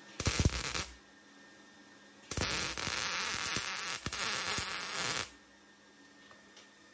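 Wire-feed welder arc crackling on a steel car frame: a short burst of under a second, then a steady bead of about three seconds.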